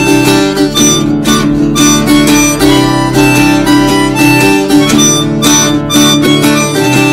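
Harmonica playing a melody of held notes over acoustic guitar, in a steady rhythm.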